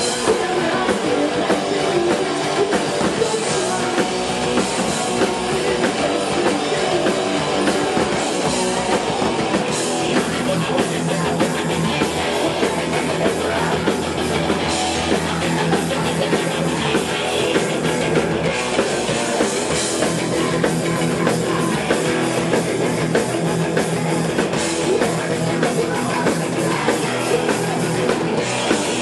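A rock band playing live: electric guitars over a full drum kit, loud and unbroken throughout.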